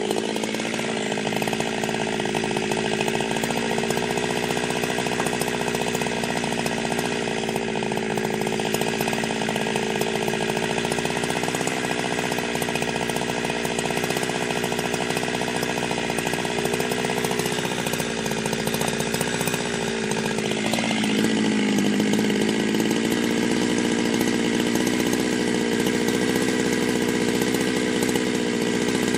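Ported Jonsered 2071/2072 two-stroke chainsaw with a modified exhaust, running at high, steady revs while cutting wood. About 21 s in its pitch dips briefly and it then runs a little louder.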